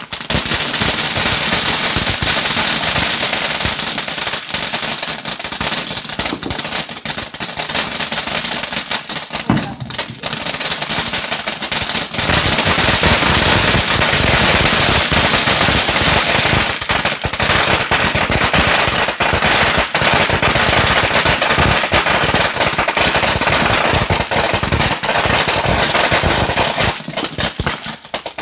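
500-gram ground-shower firework fountain spraying sparks: a loud, continuous rushing hiss packed with rapid crackling pops, easing briefly about ten seconds in.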